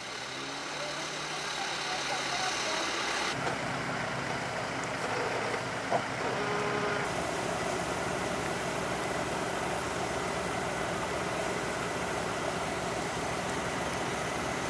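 Off-road 4x4 vehicle engines idling steadily. The sound changes abruptly about three and seven seconds in.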